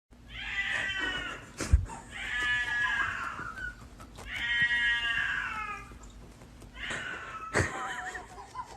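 A cat meowing in four long, drawn-out calls about two seconds apart. There is a sharp knock near the end of the first call and another during the last.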